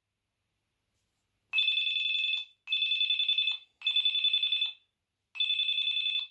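HTC Advantage X7500 phone playing a rapidly trilling, high two-note ringtone through its speaker. After about a second and a half of silence it rings in four bursts of roughly a second each, with a slightly longer gap before the last.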